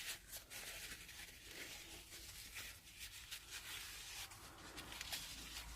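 Faint light clicks and scratching of hand work on a small metal idler pulley, as its bearing's sealing rings are pressed back in. A weak low hum lies underneath.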